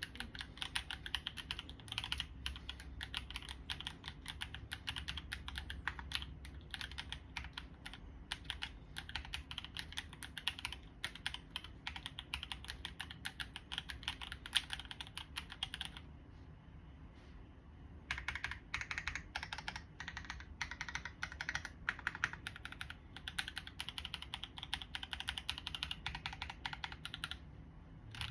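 Fast typing on a RAMA WORKS Thermal mechanical keyboard with Vertex V1 switches and double-shot ABS keycaps: rapid, dense keystroke clacks in runs. About two-thirds of the way through, the typing stops for about two seconds, then resumes.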